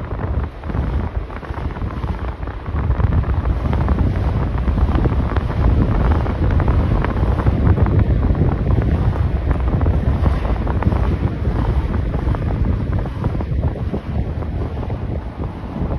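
Wind buffeting the phone's microphone: a loud, uneven low rumble that swells and dips with the gusts.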